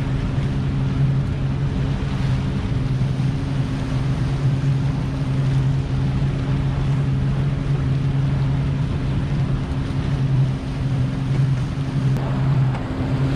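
Motorboat engine running at a steady pitch, with the rush of water and wind against the hull and microphone.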